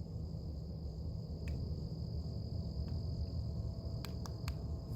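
Steady high-pitched chorus of night insects, over a constant low rumble, with a few faint clicks about four seconds in.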